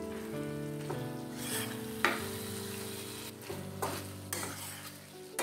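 Metal spatula stirring chopped pyazkali (spring onion stems) with potatoes and tomatoes in a stainless steel wok, the spiced vegetables sizzling, with a sharp clink of the spatula on the pan about two seconds in. Soft background music with sustained notes plays underneath.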